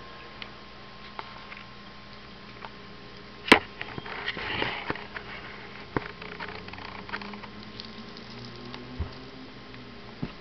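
Cats eating dry food from bowls: faint scattered crunching and small clicks. A single sharp knock about three and a half seconds in, followed by a second of rustling.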